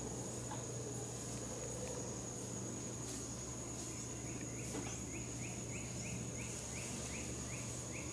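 Tropical forest insects droning on one steady high note. From about halfway, a series of short falling chirps joins in, roughly three a second. No howling.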